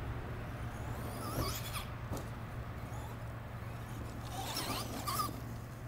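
Electric RC truck motor whining and rising in pitch as it accelerates, twice about three seconds apart, with a short click between the two.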